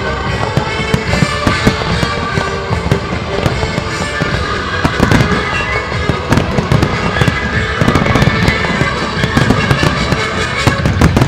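Fireworks display: a dense run of bangs and crackles from aerial shells bursting and comets firing, over show music playing alongside.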